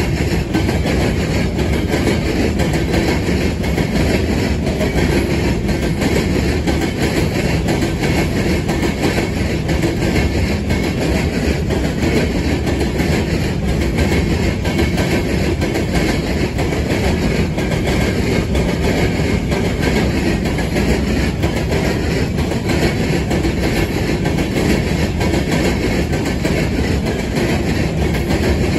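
Loaded covered hopper cars of a freight sand train rolling past close by, their steel wheels clattering and banging steadily over a railroad diamond crossing.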